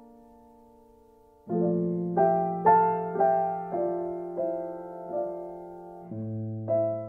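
Slow solo piano music: a held chord fades away, then about a second and a half in a new chord is struck and a gentle melody of single notes follows, about two a second, with a fresh low chord near the end.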